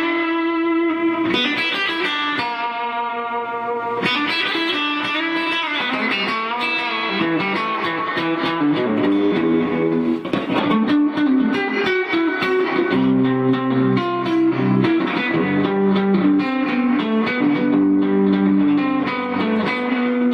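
Rickenbacker 325 short-scale electric guitar played through an amplifier with reverb: ringing chords at first, then a busier picked passage mixing single notes and chords.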